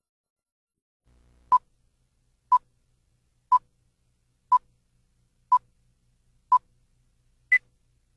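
Electronic countdown-leader beeps: seven short beeps one second apart, the first six at the same pitch and the seventh at a higher pitch, the cue that the countdown has ended.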